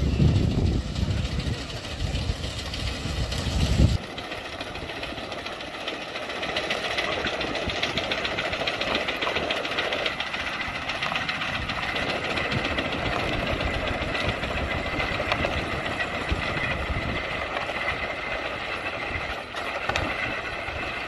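A loud low rumble for the first four seconds, cut off abruptly. After that comes the steady, rapid clattering rattle of a horse-drawn combine harvester's machinery running as the team pulls it through the stubble.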